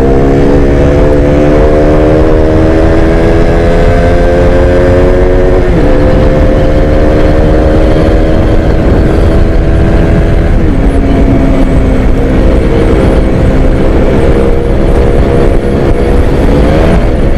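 Motorcycle engine pulling through the gears on the move: the pitch climbs slowly, drops at an upshift about six seconds in and again about eleven seconds in, then holds steady before a quick rise in revs near the end, over a steady low rumble.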